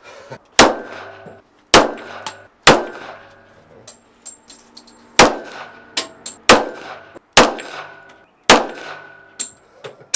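Colt 1911 pistol firing .45 ACP, seven shots at an uneven pace with a pause of about two and a half seconds after the third. Each shot has a ringing tail, and lighter metallic clinks fall between the shots.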